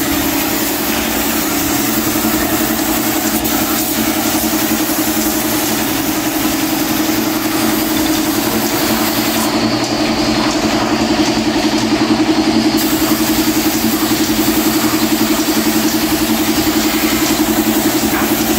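Air compressor running steadily, with a low hum, under the hiss of a gravity-feed spray gun spraying finish. The highest part of the spray hiss drops out for about three seconds near the middle, then comes back.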